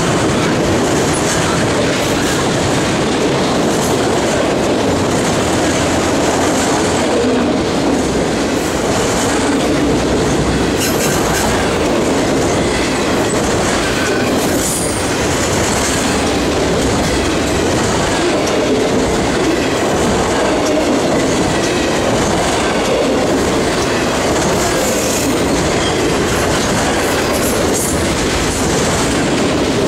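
Freight train of autorack cars rolling past at close range: a steady, loud rumble and rattle of steel wheels clicking over the rail, with now and then a faint wheel squeal.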